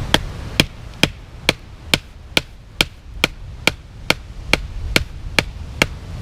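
Bark River Bushcrafter knife blade chopping into ironwood to cut a notch: a steady series of sharp knocks, about two a second, fourteen strikes in all. The wood is very hard and tough to cut.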